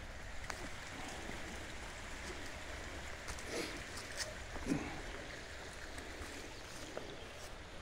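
Steady flow of the Schuylkill River along its bank, with scattered footsteps and rustling through leaf litter and undergrowth.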